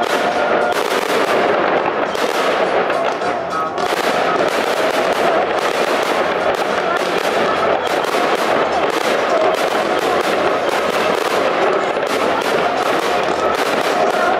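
Fireworks display: a dense, unbroken barrage of rapid bangs and crackling as aerial shells and cakes fire in quick succession.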